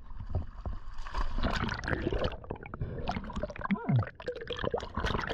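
Sea water splashing and bubbling around a camera as a freediver slips off the boat and goes under, the sound dulled and gurgling once the camera is underwater. A brief falling sound comes about four seconds in.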